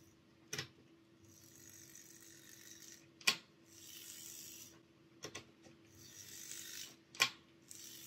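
Small DC motor and freshly greased worm gear of a Hornby J83 0-6-0 tank locomotive chassis, running in short whirring spells of a second or two as the grease is worked in. Sharp clicks come between the spells, four in all, the third a double.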